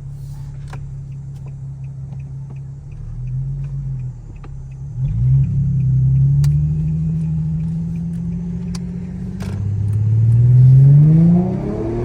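Infiniti G35's 3.5-litre V6 with the resonator deleted, running steadily, then accelerating hard from about five seconds in with the pitch climbing. It eases briefly, then revs up steeply again near the end before dropping off. A light, regular ticking sits over the steady stretch at the start.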